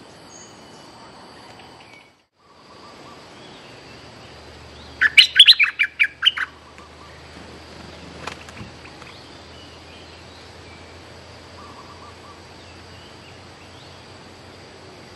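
Bulbul (merbah lekir) song: a quick run of about eight loud, clear notes lasting about a second and a half, some five seconds in, with faint scattered bird calls around it.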